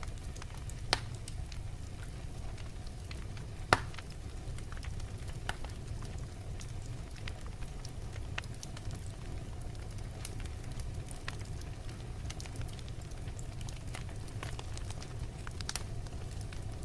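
Wood fire crackling in a fireplace: irregular sharp pops and snaps over a steady low rumble, with one louder pop a few seconds in.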